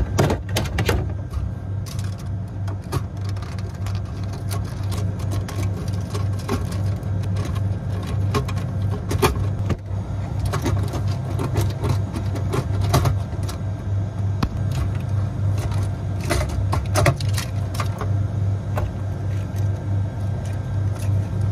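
Steady low machinery hum of running refrigeration equipment, with scattered clicks and small rattles as wire terminals and a three-pole contactor are handled and pulled out of the electrical box.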